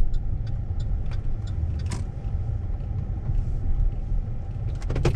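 Car driving, a steady low rumble of engine and road, with a rapid even ticking, about three a second, that stops a second or so in. A cluster of sharp clicks comes near the end.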